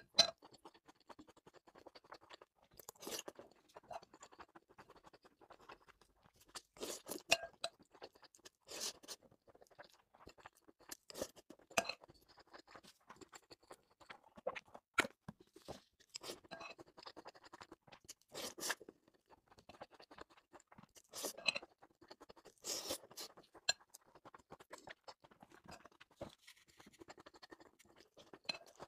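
Close-miked chewing and crunching of a mouthful of rice with stir-fried green peppers, with a ceramic spoon clicking and scraping against a glazed ceramic bowl now and then.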